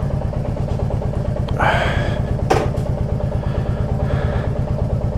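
Royal Enfield Classic 350's single-cylinder engine idling with a steady, even pulsing beat.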